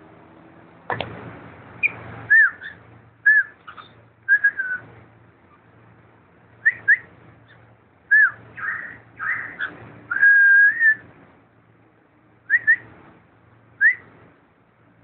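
Cockatiel whistling: a run of short whistled notes that rise and fall, with one longer held note about ten seconds in. There is a single knock about a second in.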